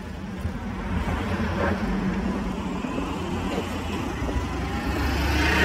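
A car driving past on the road, its engine and tyre noise growing steadily louder to a peak near the end.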